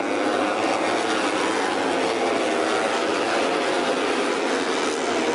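A pack of Moto3 racing motorcycles, 250 cc single-cylinder four-strokes, passing at race pace, many high-revving engines overlapping into one steady, dense sound.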